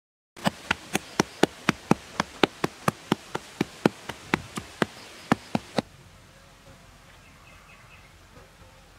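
A quick run of sharp clicks, about four a second, that stops abruptly after about five seconds. A faint steady background is left.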